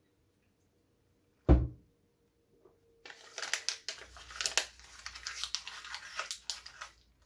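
One loud thump about a second and a half in, then printed paper crinkling and tearing as it is pushed into the mouth and bitten, a dense crackle of many sharp strokes lasting about four seconds.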